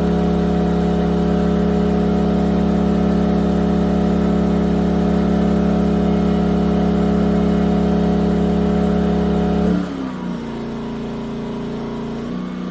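Yamaha EF2000iS inverter generator's single-cylinder four-stroke engine, converted to run on propane, running steadily during tuning of its demand regulator. About ten seconds in, its speed falls and it settles into a lower, quieter run.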